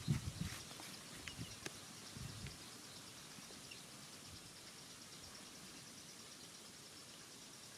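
Faint outdoor ambience with an even, high ticking about five times a second throughout, and a few dull low thumps and clicks in the first couple of seconds.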